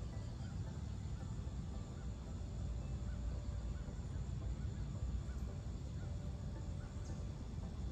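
Outdoor ambience: a steady low rumble, with a bird's faint short chirps repeating every half second or so.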